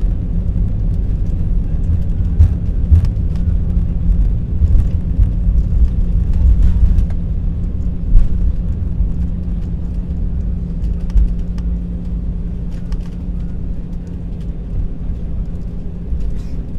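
Airbus A320 cabin noise on the ground just after landing: a low rumble of engines and wheels with a steady hum, slowly fading as the aircraft slows. A few knocks and rattles sound through it, the loudest about eight seconds in.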